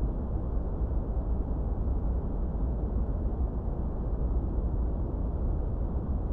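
Steady, unbroken noise played for studying, deep and muffled rather than hissy: most of its energy sits in the low end and it thins out above the midrange, closer to brown noise than flat white noise.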